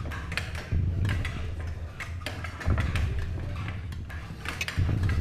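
Spoons clicking and scraping against metal bowls as several people eat hastily, over a low rumbling drone that swells three times, about every two seconds.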